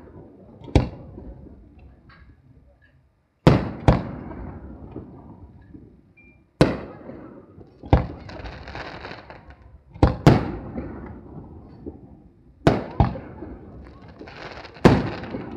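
Aerial firework shells bursting overhead: about ten sharp bangs, often two in quick succession, each trailing off in a rumbling echo, with stretches of hiss between some of them.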